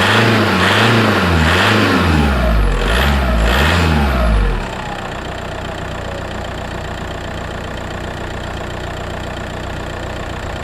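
Car engine, recorded from the front of the car, revved in repeated quick blips, its pitch rising and falling, then settling to a steady idle about four and a half seconds in.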